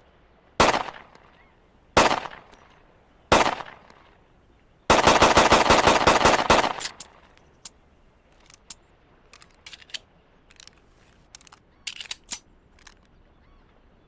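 Browning Hi Power pistol firing: three single shots about a second and a half apart, then a fast string of about a dozen shots lasting under two seconds. Light metallic clicks follow, with two sharper ones near the end.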